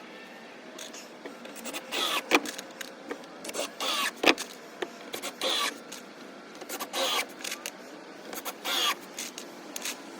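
A small power tool's motor running in short bursts of about half a second, repeated irregularly, with a couple of sharp knocks.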